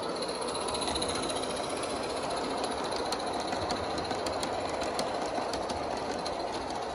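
Garden-scale model train cars rolling past on the track behind a live-steam locomotive: a steady rumble from the wheels, with scattered light clicks in the middle seconds.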